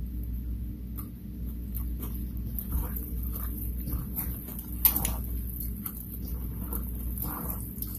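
Wet squelching and rustling of cabbage kimchi being mixed by a gloved hand in a stainless steel bowl, with scattered small clicks, over a steady low hum.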